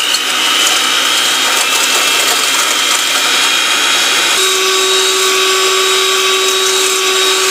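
Electric mixer with a wire whisk attachment running steadily at speed, whipping egg whites toward stiff peaks in a stainless steel bowl. Its motor whine shifts to a different pitch about halfway through.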